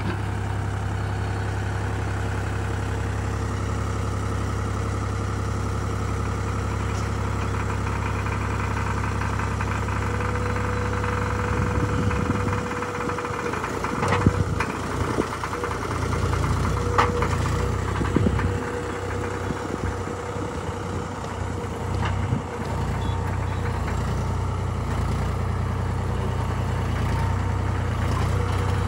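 Heavy diesel engine running steadily. About halfway through, its note shifts up and down for several seconds, with a few sharp knocks, before it settles back to a steady run.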